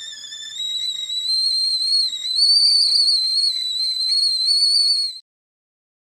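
Tea kettle whistling as its water boils: one high, steady whistle that wavers slightly in pitch, grows louder about two seconds in, then cuts off abruptly near the end.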